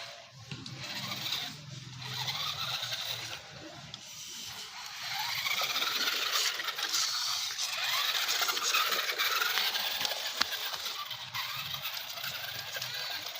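Toy remote-control monster truck's small electric motor whining, its pitch rising and falling as it is driven, loudest in the middle, with scattered clicks and rattles from the plastic truck over the ground.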